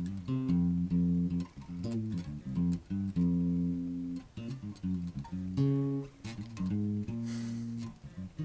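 Fender Jazz Bass electric bass played as a line of single plucked notes, some held for about a second and others short and clipped.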